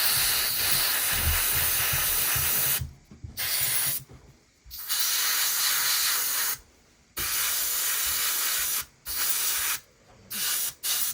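Paint spraying onto model kit parts in repeated hissing bursts: one long burst of about three seconds, then about six shorter ones with short pauses between.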